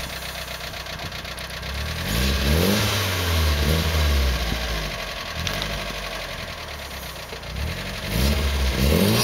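Nissan Silvia S15's four-cylinder engine idling, then revved in a few quick rises and falls about two seconds in, settling back toward idle, and revved up again near the end.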